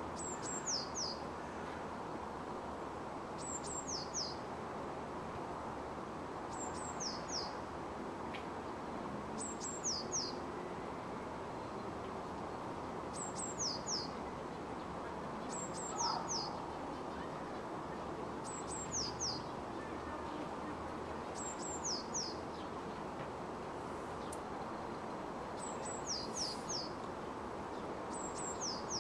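A small songbird repeating a short, high-pitched phrase of quick falling notes about every three seconds, over a steady hum of distant city noise.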